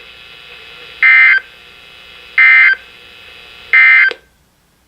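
Three short screeching bursts of EAS/SAME data tones, the end-of-message code of a NOAA Weather Radio warning, spaced a little over a second apart over a faint steady buzz. The audio cuts off just after the third burst, marking the end of the alert broadcast.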